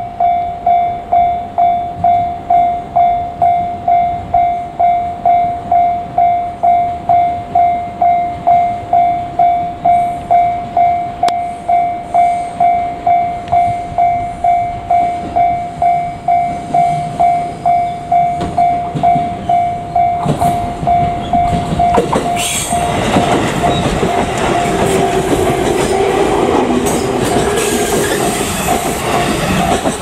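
Electronic level-crossing warning bell ringing steadily at about one and a half dings a second. From about 20 seconds in, a JR Kyushu 787 series electric express train comes through the crossing, and its wheel and rolling noise grows loud enough to cover the bell.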